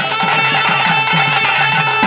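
Karakattam folk drumming: a thavil barrel drum plays a fast rhythm of sharp stick cracks and deep bass strokes that drop in pitch, about four or five deep strokes a second. A steady held melody note sounds above the drums.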